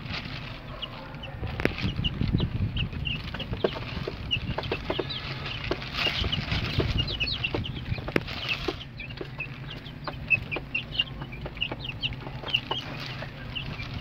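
Broiler chicks peeping in many short, high cheeps while they peck grain from a plastic feeding tray, with frequent small sharp clicks of beaks striking the feed and tray.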